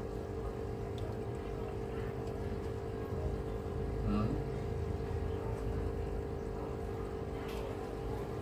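A steady low mechanical hum, like a small motor running.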